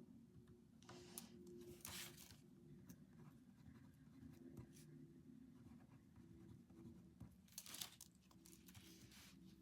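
Two faint bursts of paper rustling, the first about a second in and the second near the end, over quiet room tone with a low hum.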